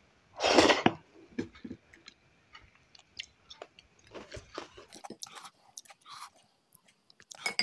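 A person chewing a mouthful of rice and mutton curry eaten by hand, with small wet mouth clicks throughout. About half a second in there is one loud, brief mouth noise as the handful goes in.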